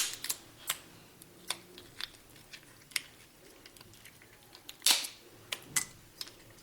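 Cooked lobster shell clicking and cracking as it is pulled apart by hand: scattered small snaps, with a louder crunch about five seconds in.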